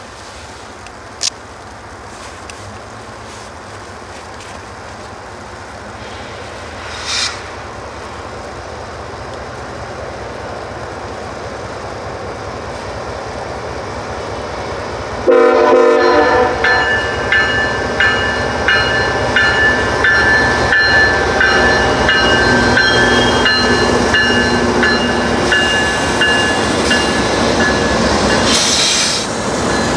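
Train approaching, its rumble growing steadily louder. About halfway through, a train horn blasts suddenly and the train passes loudly, with high steady ringing tones over the rumble.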